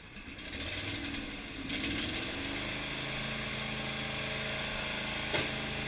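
John Deere garden tractor engine starting: a short spell of cranking, it catches about two seconds in, then runs steadily at idle. A single click near the end.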